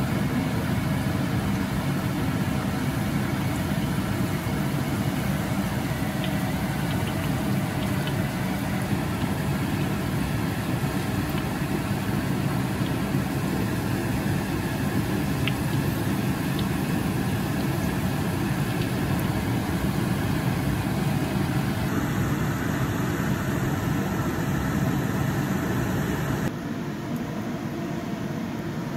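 Shredded taro balls deep-frying in hot grapeseed oil in a wok: a steady sizzle with a few small pops, over a constant mechanical hum. The sound steps down slightly a few seconds before the end.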